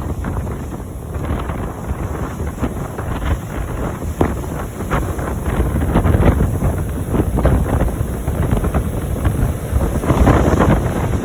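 Wind buffeting the microphone in irregular gusts, with a stronger gust near the end.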